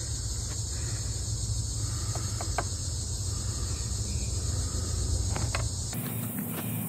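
A steady, high-pitched chorus of insects, with a few faint clicks. The chorus stops abruptly about six seconds in.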